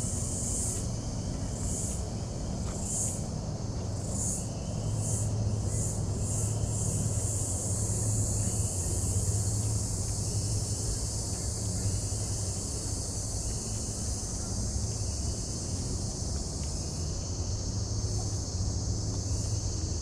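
Insect chorus in the bush: a steady high-pitched drone that pulses about once a second over the first several seconds. Short faint chirps repeat about once a second over a low steady rumble.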